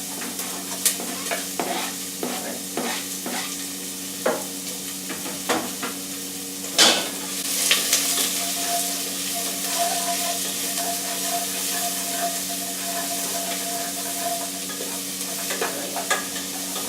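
Vegetables sizzling in hot oil in a pot as they are stir-fried, with a utensil clicking and scraping against the pot and one louder knock about seven seconds in. A steady low hum runs underneath.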